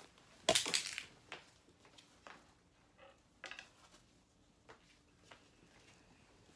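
Handling and movement noises: a loud rustle about half a second in, then faint scattered knocks and taps as someone gets up and moves about with a handbag.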